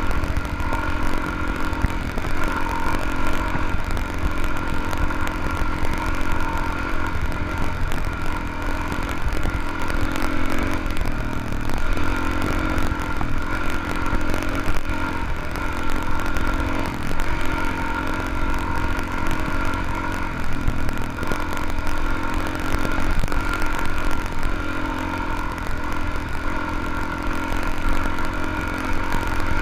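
Dual-sport motorcycle engine running steadily while riding a rough, rocky dirt track, its pitch shifting a little now and then with the throttle, over a steady deep rumble.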